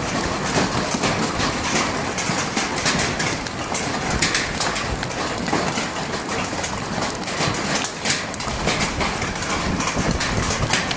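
Heavy hail pelting the ground and pavement in strong wind: a dense clatter of many small impacts over a steady rush of wind.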